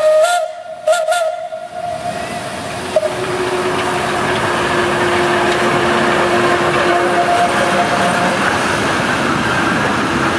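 1907 SLM E 3/3 steam tank locomotive blowing its steam whistle in two short blasts. It then moves off along the track with a steady hiss of steam.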